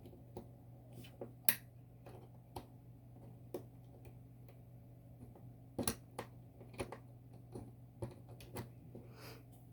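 Irregular small metallic clicks and ticks from a pick and tension tool working the exposed levers of a gutted Tann detector lever lock. The sharpest clicks come about one and a half seconds in and again about six seconds in, over a steady low hum.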